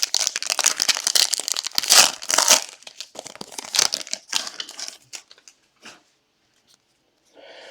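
Foil trading-card pack wrapper being torn open and crinkled, dense crackling for the first few seconds that thins out and stops about five seconds in.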